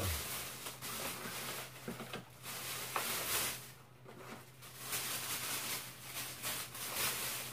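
Plastic carrier bag rustling in several bursts as takeout food containers are unpacked from it, over a steady low hum.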